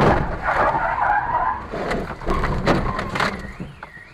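A car crash heard through a dashcam: a loud bang at the start, then a skidding, scraping noise for about a second, and several sharp knocks. Near the end a high tone begins to rise and fall over and over.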